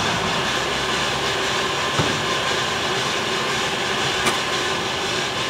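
Bideli 2 kg propane drum coffee roaster running mid-roast before first crack: a steady loud whir of the turning drum, fan and gas burner with the beans tumbling inside, and two faint clicks about two and four seconds in.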